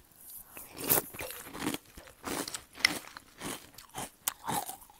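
A person chewing a mouthful of crunchy square cereal right at a headset mic, a run of irregular crisp crunches.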